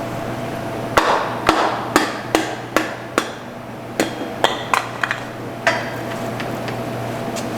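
About a dozen irregular hammer blows on metal, some ringing briefly, over a steady low workshop hum.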